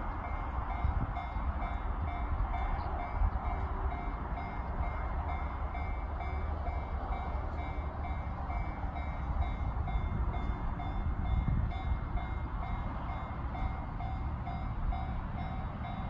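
Japanese level crossing warning bell ringing in evenly repeated electronic dings, over a low rumble of wind on the microphone.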